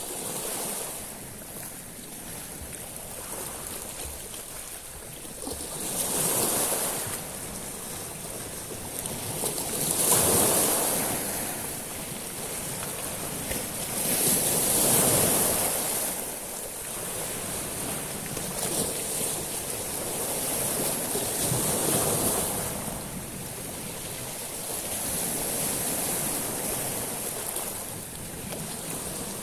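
Sea waves washing in and out over a beach of small stones. Each wave swells and fades, with a louder surge every four to five seconds over a steady hiss.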